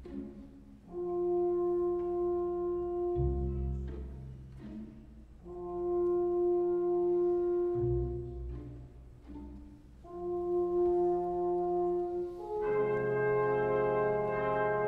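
Symphony orchestra playing soft, held wind chords that swell and fade three times, each entering over a deep bass note. Near the end a fuller chord with many more instruments comes in.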